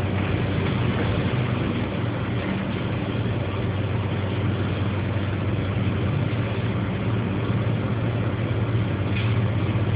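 A vehicle engine idling with a steady low hum, under a constant rush of wind noise from a sandstorm.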